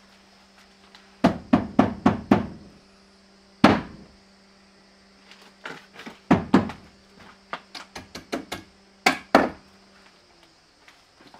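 Footsteps and bumps through a debris-strewn hallway: uneven clusters of sharp thuds and knocks, with a faint steady hum underneath that stops near the end.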